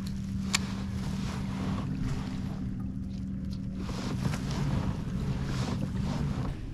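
A fishing kayak under way on the lake: a steady low hum, with wind on the microphone. A sharp click sounds about half a second in and another a little after four seconds.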